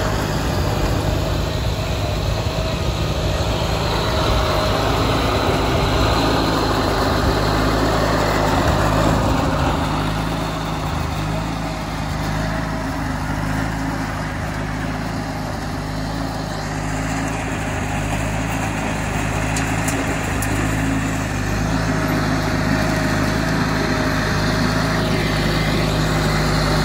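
Case 446 garden tractor's engine running steadily at a constant speed while driving its front-mounted snowblower. It gets a little fainter in the middle as the tractor moves off, then louder again near the end.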